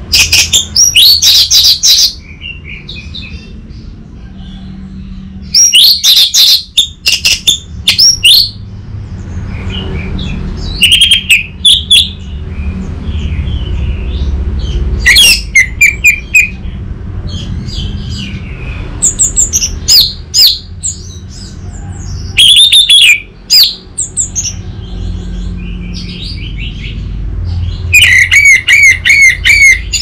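Orange-headed thrush singing loud phrases of quick, sharp whistled notes every few seconds, with a rapid run of repeated notes near the end. A steady low rumble runs underneath.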